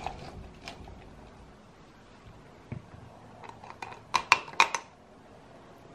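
Plastic hand lemon juicer being worked: faint squeezing and handling sounds at first, then a quick run of sharp plastic clicks and knocks about four seconds in as the reamer top is lifted off the juice cup.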